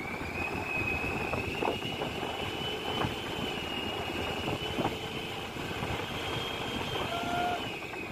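Fishing boat's engine running steadily, with a steady high whine on top and wind and sea noise around it. The whine stops near the end.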